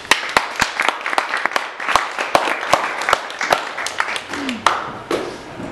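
A small audience clapping, the single claps distinct and irregular, dying away about five seconds in.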